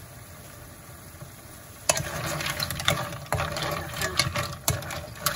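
Clams in a wok sizzling low and steadily. From about two seconds in, a wooden spatula stirs them through the seasonings, with repeated sharp clicks of shells clattering and scraping against the pan.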